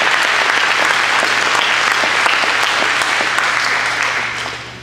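A seated audience clapping, the applause dying down near the end.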